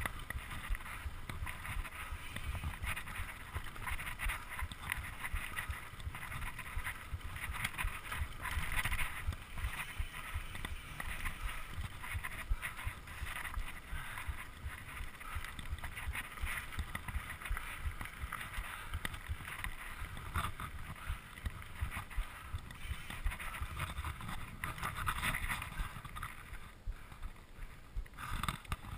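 Mountain bike rolling over dirt singletrack, its tyres rumbling and the bike rattling over the rough trail in a steady stream of small clicks, with wind buffeting the microphone.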